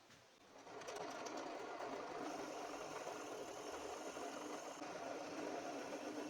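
A power tool's small electric motor starts about a second in and runs steadily.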